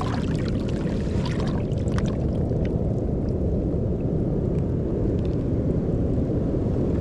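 Wind buffeting the microphone as a steady low rumble, with a few light clicks and taps in the first two or three seconds.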